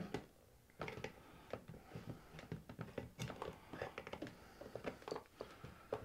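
Small flat-blade screwdriver prying and rocking a vacuum line block off the ports of a 1990–1996 Corvette HVAC programmer module: a string of faint, irregular clicks and scrapes.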